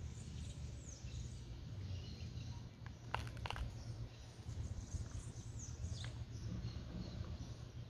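Outdoor ambience: a steady low rumble with a few faint, short high bird chirps that slide downward, and a couple of sharp clicks about three seconds in.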